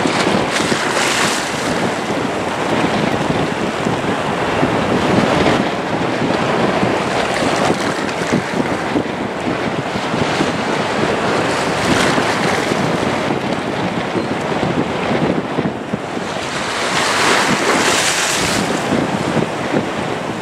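Gusty wind on the microphone: a loud, steady rushing with rising and falling swells, the strongest near the end.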